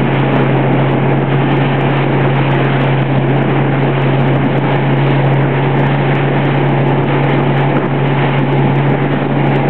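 A motorboat engine running at a steady pitch, with a constant low hum under loud, even wind and water noise.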